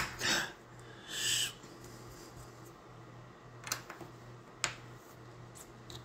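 Flat metal spanner wrench scraping and clicking against the knob rose of a Dorex Grade 1 commercial classroom door lock as it is turned to retighten the loosened lock. Two short rasps in the first second and a half, then a few sharp metal clicks later on.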